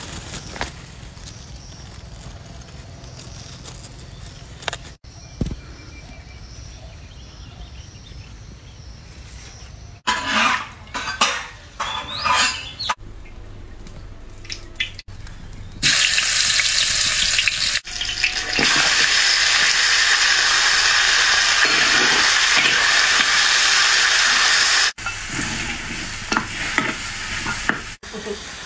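Raw meat sizzling in hot fat in an iron wok: a loud, even hiss that starts suddenly a little past the middle and runs for about nine seconds, then drops to quieter frying near the end. Before it, a quieter stretch broken by a few short clatters and scrapes.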